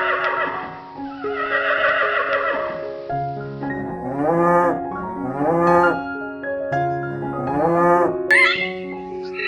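Cow mooing three times, each call rising then falling in pitch, after two breathy, hissing exhalations, all over background music with steady held notes.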